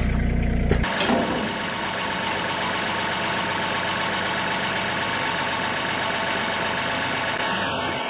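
Kioti NS6010 compact tractor's diesel engine running steadily. About a second in the deep low hum drops away abruptly, leaving an even, steady engine noise.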